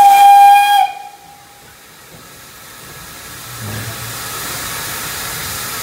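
Steam locomotive whistle giving one short blast, just under a second long, with a brief echo. After a lull, steam hiss from around the cylinders and wheels comes back in, with a low thump about three and a half seconds in.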